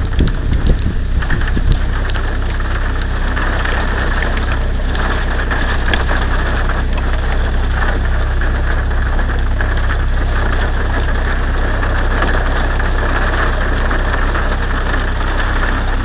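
Heavy rain falling: a dense, steady hiss with many scattered drop clicks, over a steady low rumble. A few louder knocks come in the first two seconds.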